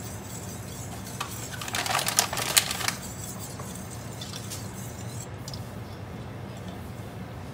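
A wire whisk stirring grape juice and pectin in a stainless steel pot, clicking rapidly against the metal. The clicking is loudest for about a second and a half, starting about one and a half seconds in, with a few lighter taps later, all over a steady low hum.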